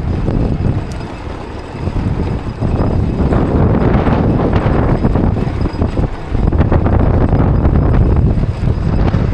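Wind buffeting the microphone in a snowstorm: a loud, low rumble that gusts up and down, easing briefly twice.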